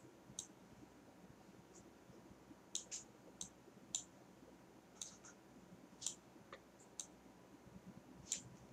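Computer mouse clicking: about a dozen faint, short clicks at irregular intervals.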